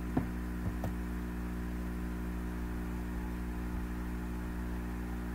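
Steady electrical hum and hiss of the recording's background noise, with two short faint clicks in the first second.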